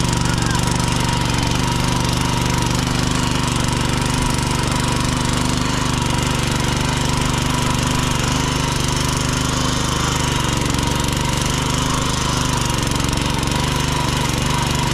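Small petrol engine of a walk-behind mini tiller running steadily under load as its rotary tines work the soil, sagging briefly in pitch and level about ten seconds in.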